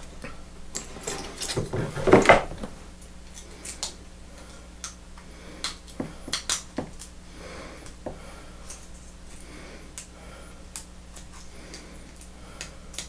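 Big pair of tin snips cutting small pieces of thin sheet metal: a string of sharp metallic snips and clicks, irregular and roughly a second apart, with a louder clatter of metal being handled about two seconds in.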